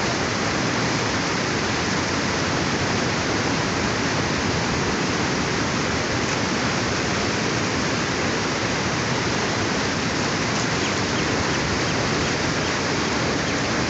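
Floodwater rushing steadily, an even, unbroken water noise.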